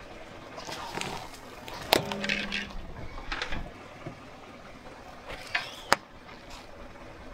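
A car tyre crushing small objects on asphalt: a run of sharp cracks, crunches and snaps. The loudest crack comes about two seconds in. Another sharp snap comes near six seconds, as something bursts into a white powder cloud under the wheel.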